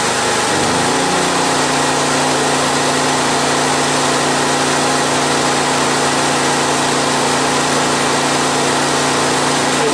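Honda EU2200i inverter generator's single-cylinder engine speeding up about a second in as the load is raised to about 1500 watts, then running steady at the higher speed under load.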